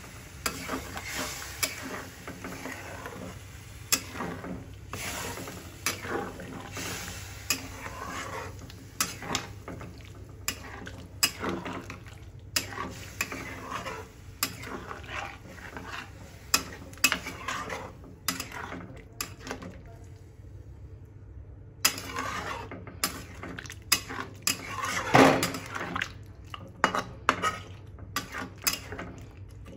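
A metal spatula scraping and clinking against the sides and bottom of a metal kadai as thick chicken curry is stirred, in irregular strokes. There is a short pause about two-thirds of the way through, and the loudest scrape comes soon after it.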